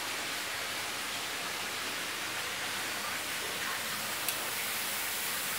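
Steady hiss with one short, sharp click about four seconds in.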